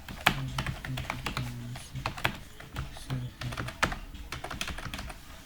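Fast, irregular keystrokes on a computer keyboard: continuous typing practice, with several clicks a second and a few louder key strikes.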